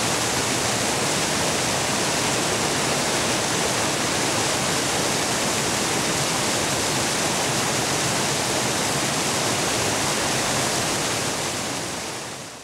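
Steady rush of fast, shallow river water flowing over a stony bed, fading out near the end.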